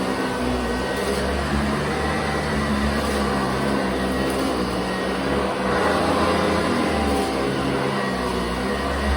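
Sanitaire commercial vacuum cleaner running steadily, its motor humming as it is pushed over carpet.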